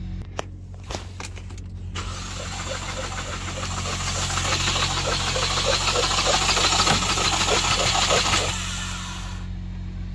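A few clicks, then the starter cranking the Ford Focus 2.0 L four-cylinder engine for about six seconds with an even, quick rhythm, cutting off near the end. The engine is being cranked without starting, its spark plugs out and a compression gauge in one cylinder, during a compression test.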